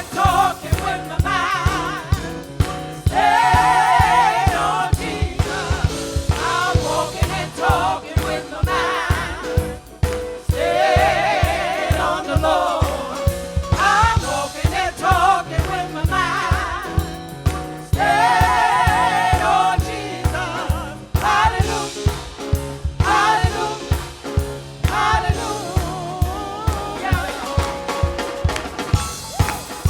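Gospel music: voices singing in sustained phrases with vibrato over a steady drum beat and bass.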